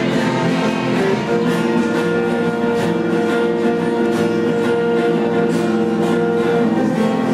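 Instrumental music with long held notes and plucked, strummed strings.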